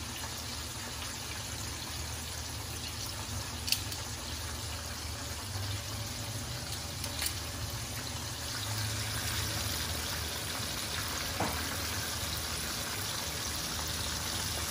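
Breaded chicken pieces frying in a pan of hot oil, a steady sizzle, with a sharp click about four seconds in and a couple of fainter clicks later.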